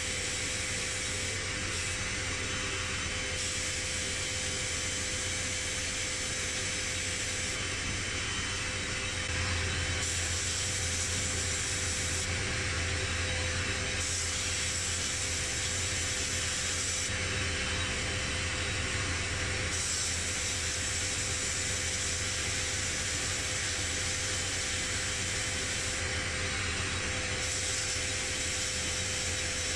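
Air-fed blast gun in a media blasting cabinet hissing as it blasts a part, the hiss swelling and dropping back in spells of a few seconds as the trigger is pressed and released. A steady low hum and a faint steady tone run underneath.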